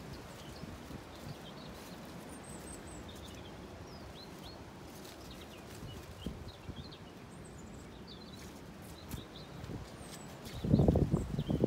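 Small birds chirping over a steady outdoor hiss of wind, with a brief loud rumble of noise near the end.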